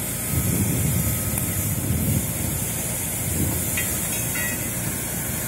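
Steady hiss of water spray and steam off a freshly extinguished, burnt-out car, over a gusty wind rumble on the microphone.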